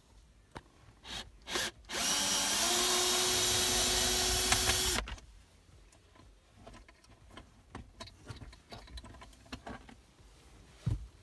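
Power drill running for about three seconds, its pitch rising briefly as it spins up and then holding steady before it stops. A few short knocks come just before it, and light handling clicks after.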